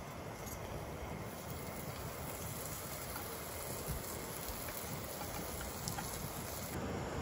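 Steady hiss of a canister camp stove burner with a sandwich frying in a stainless pan, with a few faint clicks of the spatula against the pan.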